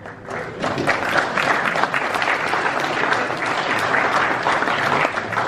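Audience applauding, a dense patter of many hands clapping that builds up in the first half second and thins out near the end, as a lot is sold at auction.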